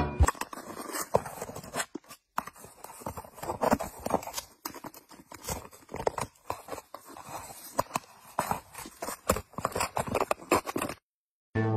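Rapid, irregular scratching, crinkling and tearing as a cat claws and bites at a hole in paper, with a brief break about two seconds in.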